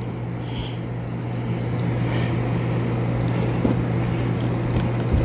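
A steady low machine hum with a constant noisy wash behind it, growing slightly louder about a second or two in.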